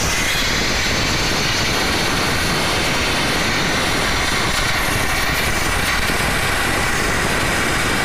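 Car steam-wash machine spraying steam: a loud, steady hiss from the jet with no break.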